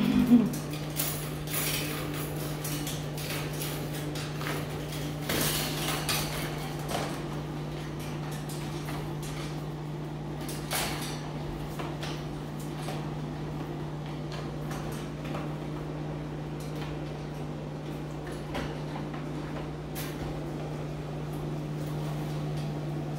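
Puppies playing on a tile floor: scattered light clicks, taps and scrapes of claws and toys on the tiles, over a steady low hum. A brief louder sound comes just after the start.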